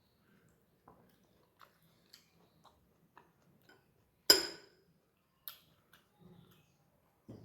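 Close-up eating sounds: soft, sparse mouth clicks and chewing. About four seconds in, one loud sharp clink of dishware rings briefly, followed by a lighter knock a second later.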